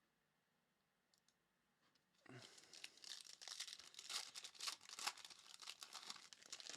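Near silence, then about two seconds in, a trading-card pack's wrapper being torn open and crinkled, a dense run of sharp rustling.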